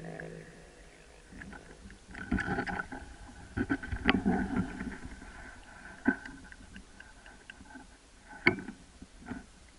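Brush and twigs rustling and cracking close by in a string of short, irregular crackles and knocks, with single sharper snaps about six and eight and a half seconds in.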